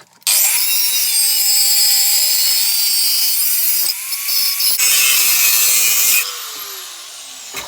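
Angle grinder cutting into the metal of a car compressor: a loud, steady grinding hiss with a whine from the spinning disc. About six seconds in the disc leaves the metal and the motor winds down, its pitch falling.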